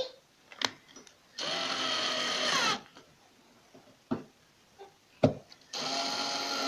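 Cordless drill-driver working the screws of a sofa's metal joining bracket: two runs of about a second and a half each, the motor's whir dropping in pitch as each run stops. A few sharp knocks and clicks between them as the bracket is handled.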